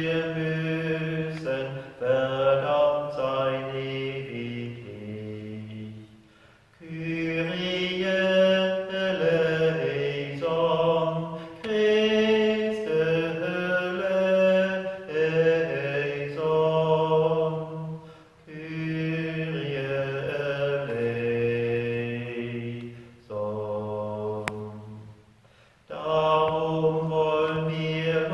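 A man's voice chanting liturgy solo and unaccompanied, in about six sung phrases of held notes with brief pauses between them.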